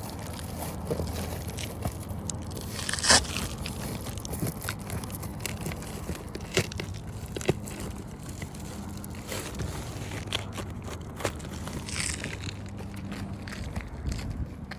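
Asphalt roof shingles being pried up with a crowbar: irregular scraping, crackling and crunching, with a sharp knock about three seconds in and another about twelve seconds in.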